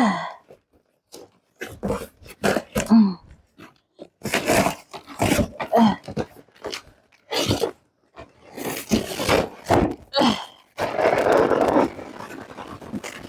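Scraping and rustling of a heavy cardboard box being handled and opened, in irregular bursts with a longer stretch of sliding near the end, along with a few short grunts.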